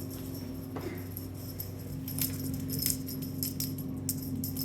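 Small metallic jingling and rattling, like a bell cat toy being shaken, in quick clusters starting about two seconds in, over a steady low hum.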